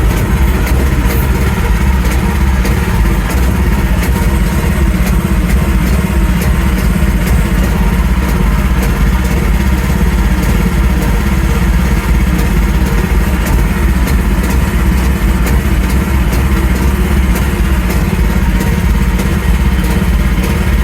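A new AGT mini excavator's engine running steadily close by, with light clatter over it.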